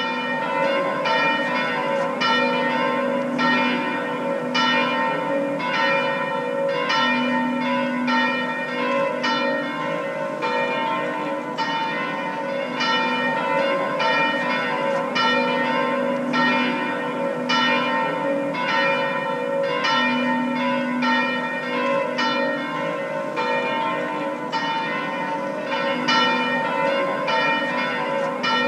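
Church bells pealing, struck about two to three times a second, the overlapping tones ringing on between strikes.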